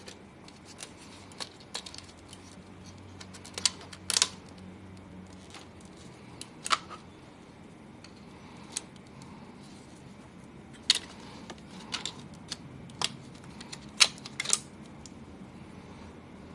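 Irregular sharp clicks and taps of small hard parts and tools being handled, as in unscrewing and taking apart a graphics card's heatsink, with the loudest clusters about four seconds in and near the end.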